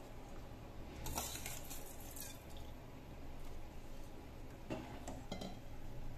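Slotted steel spoon stirring rice in a metal pot of water, scraping against the pot for a second or so about a second in, then a few light clinks near the end.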